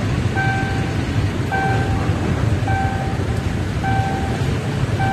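Railway level-crossing warning alarm beeping, a steady half-second tone about once a second, five times, while a train rolls across with a low steady rumble of the train and waiting traffic.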